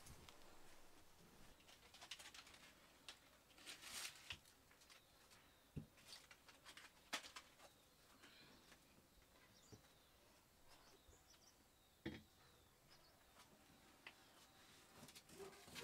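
Near silence: a quiet room with a few faint scattered knocks and rustles, and faint bird chirps in the background.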